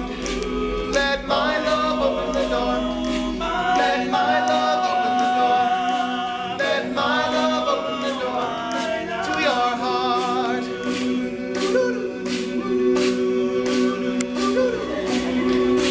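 All-male a cappella group singing in close harmony, with a lead voice over sustained low backing notes and a steady beat of sharp percussive hits.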